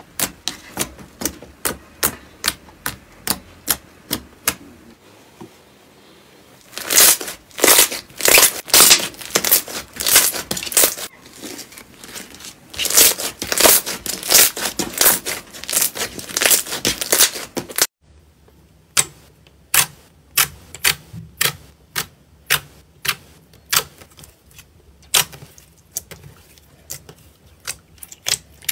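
Slime being squeezed and pressed by hand, giving sharp popping clicks about two a second, with a denser, louder run of crackling pops in the middle that stops abruptly before the spaced clicking resumes.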